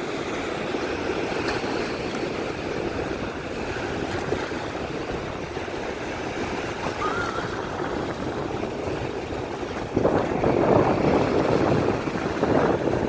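Surf and wind on a beach, a steady rush of noise that grows louder about ten seconds in.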